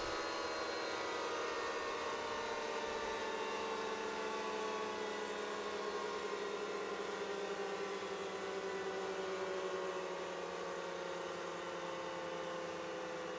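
Yamaha music siren winding down as its motor stops: a soft, harmonica-like chord of many steady tones all sliding slowly lower in pitch and fading a little.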